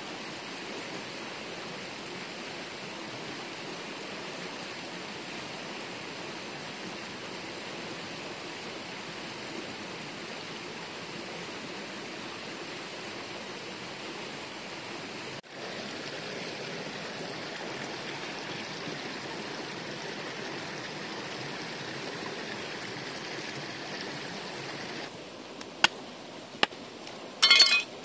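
Steady rush of flowing water. Near the end it thins out and a few sharp clinks or knocks sound.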